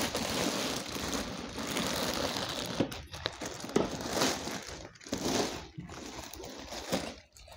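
Clear polythene bag rustling and crinkling as it is pulled off a new printer, with scattered sharper crackles; it gets quieter after about six seconds.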